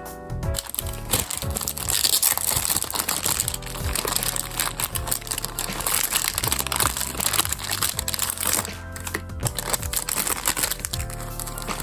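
Plastic packaging crinkling and rustling continuously as items are handled and unwrapped, over background music.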